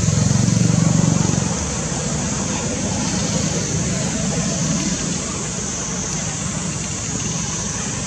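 Steady outdoor background noise: a low rumble like distant traffic, louder for the first second and a half, under a constant high hiss.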